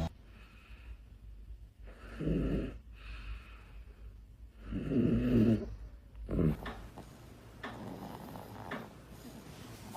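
Sleeping baby snoring: a rough snore about two seconds in, a longer and louder one around five seconds, a short one just after, then softer snoring breaths.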